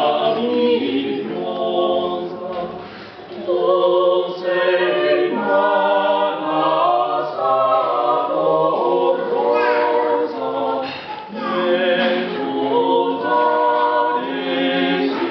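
Mixed choir of men's and women's voices singing together in harmony, in phrases with a short break about three seconds in.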